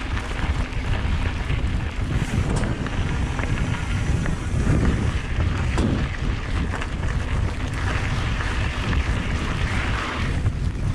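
Wind rumbling on the microphone of a mountain bike rolling fast downhill, with the tyres crunching over a rocky dirt trail and a few sharp clicks and rattles from the bike.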